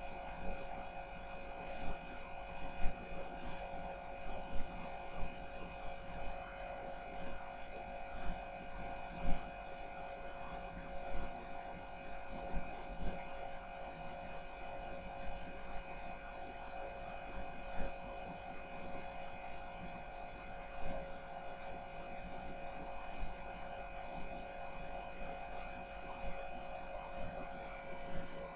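Steady electrical hum with a thin high whine, the background noise of the recording setup, broken now and then by brief faint clicks or knocks.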